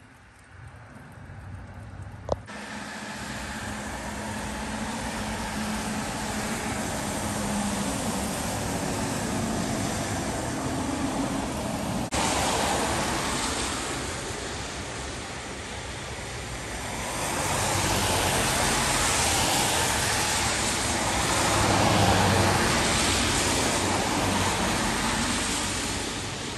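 Cars passing on a rain-wet street, their tyres hissing on the wet road over a steady hiss of falling rain. The hiss starts abruptly about two seconds in and swells loudest twice in the second half as vehicles go by.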